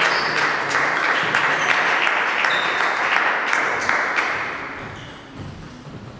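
Applause from spectators, a patter of many claps that fades out about five seconds in.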